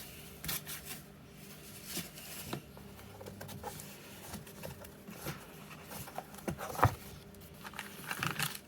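Scattered light clicks, taps and rustles of keyboard kit parts and their packaging being handled, with a sharper knock about seven seconds in and some crinkling near the end.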